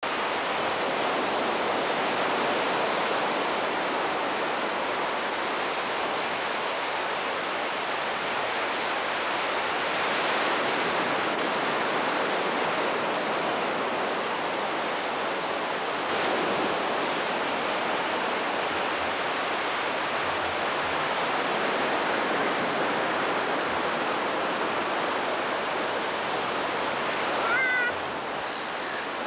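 Surf washing onto a beach, a steady rush of breaking waves that swells a little every few seconds, with a brief rising squeak near the end.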